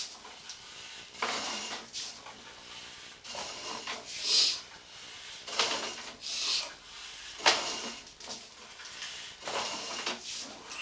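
Sewer inspection camera's push cable being pulled back out of the line, with irregular metallic clattering and scraping about once a second and one sharp click about two-thirds of the way through.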